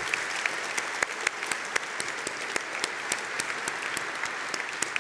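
Audience applauding, with sharper claps from someone clapping close to the microphone at about four a second.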